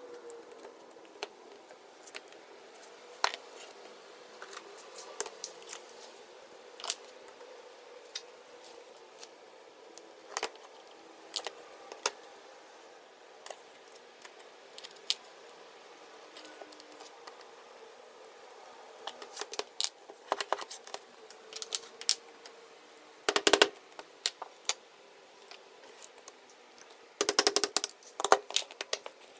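Clicks and knocks of hand tools and the plastic stock parts of an airsoft KRISS Vector gun being handled during disassembly. The sounds are scattered through most of the stretch, with a short run of knocks about three-quarters of the way through and a longer, busier flurry near the end.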